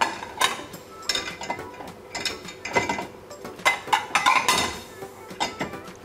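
White plates clinking against one another and knocking on the wire lower rack of a dishwasher as they are set upright, one by one, into the rack's slots. A string of short, irregular clinks.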